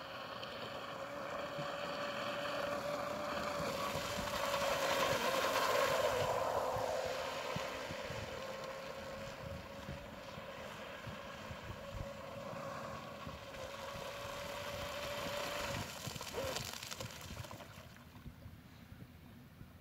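Pro Boat Blackjack 24 RC boat's electric motor running at speed, a steady high whine that grows louder about four to seven seconds in as the boat comes closer, then fades. About sixteen seconds in the whine briefly changes pitch and dies away as the boat slows.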